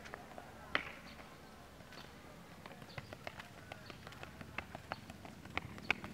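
A futsal ball being dribbled with the feet on a concrete court: quick, irregular light taps of shoe on ball and ball on ground, with shoes scuffing, one sharper touch about a second in and another near the end.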